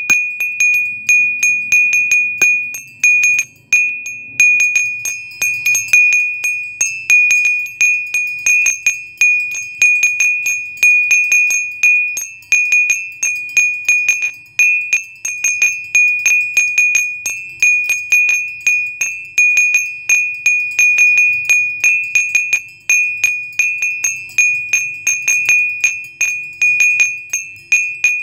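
Chime-like tinkling: one high, bell-like note struck over and over, several times a second.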